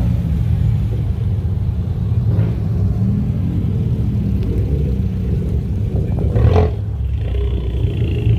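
Low, steady engine and exhaust rumble of cars rolling slowly by, mainly a Fiat 500 Abarth's turbocharged four-cylinder, with one brief louder burst about six and a half seconds in.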